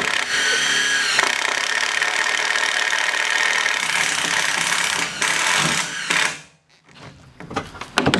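Power drill running steadily for about six seconds, driving into wood framing, then stopping.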